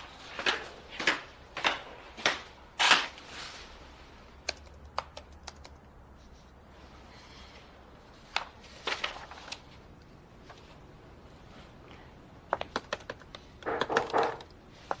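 High-heeled shoes clicking on a hard floor, about five steps a little over half a second apart. Then light laptop-keyboard typing in short scattered bursts, with a thicker cluster of keystrokes near the end.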